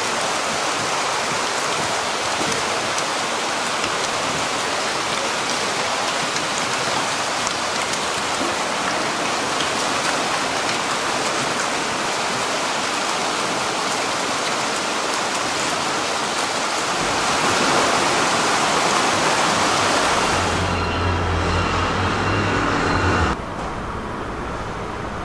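Water pouring from a pipe and splashing into a fish pond: a steady rushing and splashing. About 20 seconds in it gives way to a low hum, and near the end it cuts to quieter background noise.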